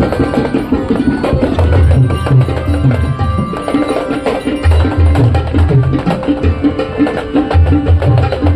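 Drums and rapid percussion playing a loud, steady rhythm for temple aarati, with low drum beats coming in clusters over quick, dense strikes.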